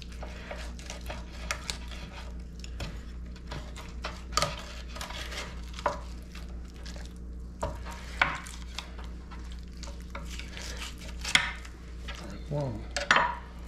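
A fillet knife scraping and clicking against a wooden cutting board as the skin is pulled off a tautog fillet: irregular short scrapes and taps, over a steady low hum.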